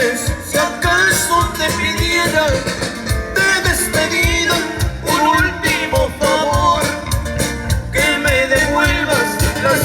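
A live band plays a Latin song with a steady drum-and-bass beat and a melody line over it; no words are sung.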